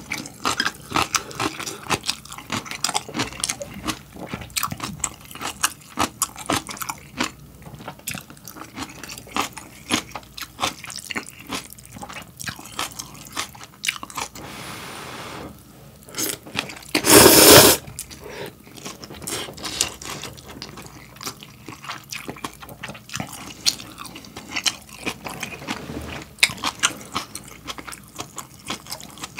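Close-miked eating of instant ramyeon noodles and kimchi: continual wet chewing and crunching. Just past the middle comes one loud slurp of noodles, the loudest sound.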